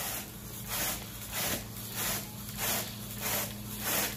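Carpet grooming rake dragged back and forth through the carpet pile in quick strokes, a scratchy swish about twice a second.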